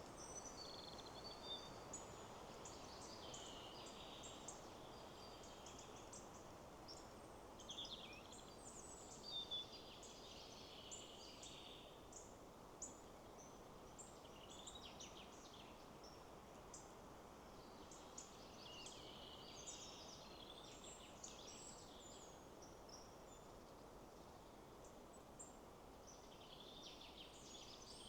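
Faint forest ambience: several small birds chirping and singing in quick, overlapping phrases over a steady, soft rush of wind in the trees.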